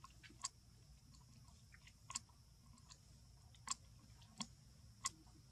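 A baby macaque biting and chewing a dry leaf, with about five sharp, crisp crackles as the brittle leaf breaks in its mouth, spread a second or so apart.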